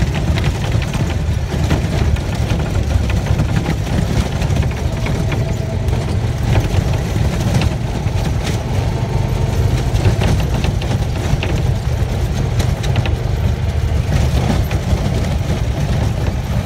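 Honda side-by-side utility vehicle driving over rough desert grassland: a steady low engine and tyre rumble with frequent small rattles and knocks from the bumps.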